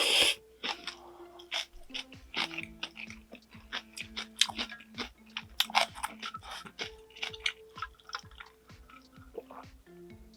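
Close-miked chewing and crunching of food, with many short sharp bite sounds and a loud burst right at the start, over soft background music.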